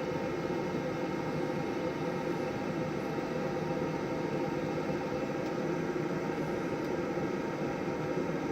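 Green Mountain Grills Davy Crockett pellet grill's fan running steadily with an even whir during start-up, as the new igniter lights the pellets.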